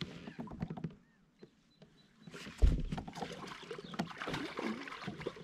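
Handling noise on a plastic pedal kayak: a sharp low knock on the hull about two and a half seconds in, then a run of rustling and water noise, after a nearly silent second.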